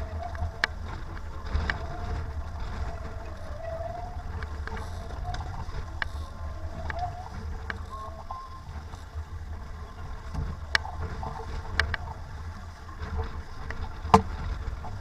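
Strong wind buffeting the microphone aboard a sailboat in about 25 knots of wind, a steady low rumble. Over it a wavering whistle comes and goes in the first few seconds, and several sharp knocks sound, the loudest near the end.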